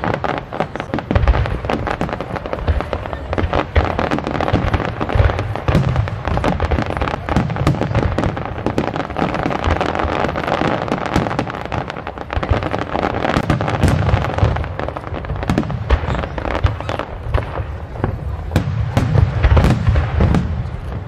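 Fireworks display with aerial shells bursting one after another: deep booms under a dense stream of sharp pops and crackles, busiest near the end.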